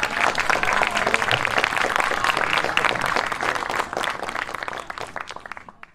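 Audience applauding after a song ends: many hands clapping at once, fading out near the end.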